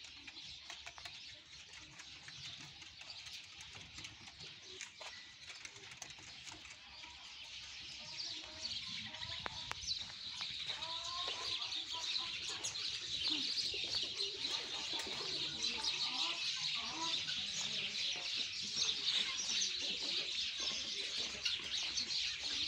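Many birds chirping in a dense, steady chatter that grows louder about a third of the way in, with some lower calls mixed in.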